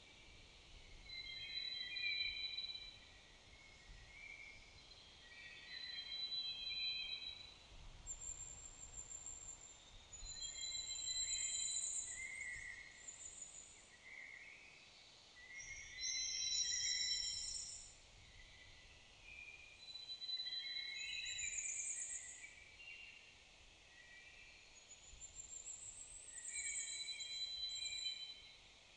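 Songbirds singing in a woodland: short phrases of whistled and trilled notes, each a couple of seconds long, repeated every few seconds with short pauses in between.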